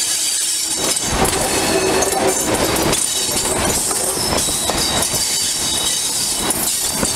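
Class 37 diesel-electric locomotive running with its train, heard from an open coach window close behind it: a dense, steady mix of engine and wheel-on-rail noise, with a thin high squeal from the wheels on the curve. The sound gets louder about a second in.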